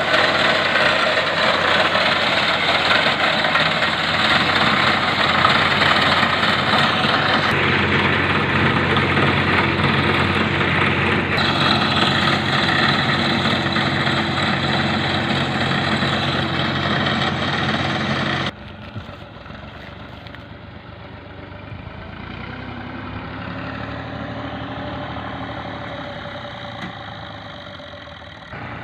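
Massey Ferguson 135 tractor engine running steadily while working a reaper machine. About two-thirds of the way through it drops abruptly to a much quieter, more distant engine sound.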